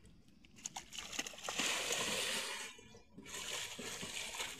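Water splashing as a swimmer slaps the surface with clumsy arm strokes, in two stretches with a short break about three seconds in.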